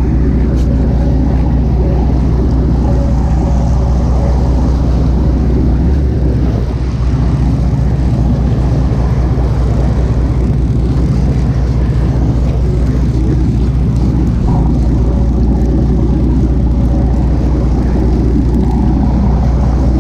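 Fishing boat's engine running steadily, a loud continuous low drone.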